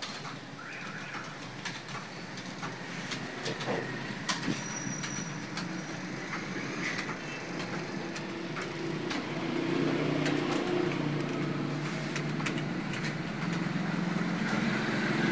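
Computer keyboard being typed on during a speed test: irregular key clicks over a steady low hum that grows louder about nine seconds in.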